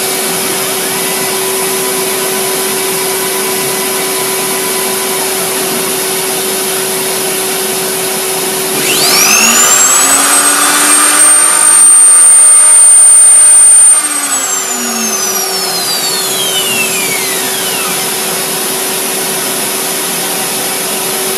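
Vacuum cleaner running steadily for dust extraction on a DIY CNC router. About nine seconds in, the Ferm router used as the spindle starts with a quickly rising whine and runs loud for about five seconds. It is then switched off and winds down, its pitch falling over several seconds.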